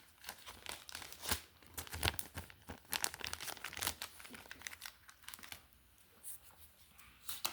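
Packaging being handled, crinkling and tearing in irregular crackles, with a few sharper snaps about a second in, near two and three seconds in, and near the end.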